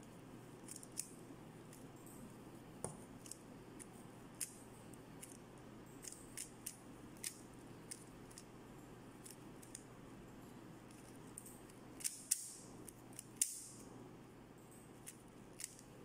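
A 3x3 Rubik's cube being turned one-handed: irregular small plastic clicks and clacks as its layers turn, with a louder cluster of clicks about twelve to thirteen seconds in, over faint steady background noise.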